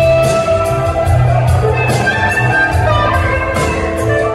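Live rock band playing: an electric guitar lead holds long, slightly bending notes over drums with cymbal strokes, bass and keyboards.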